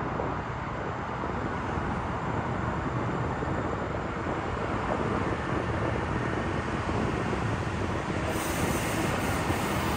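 Sound Transit Link light rail train pulling out and passing, a steady rumble of wheels on rail that grows slowly louder.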